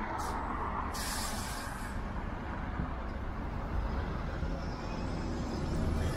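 Low rumble of city street traffic, with two short hisses of released air near the start, the second lasting about a second, typical of a heavy vehicle's air brakes.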